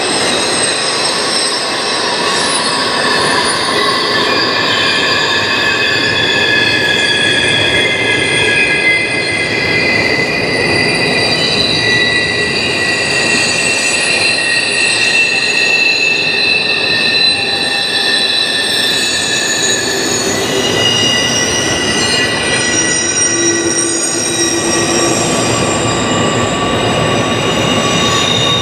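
Double-stack container freight train rolling past, its wheels squealing in several high pitches that shift and overlap over the steady rumble of the cars.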